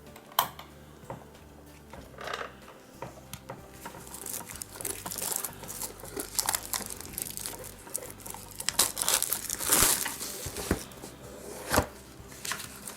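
Plastic wrapping being torn and crinkled off a small cardboard game box, with irregular crackles and rustles that grow busier and louder near the end.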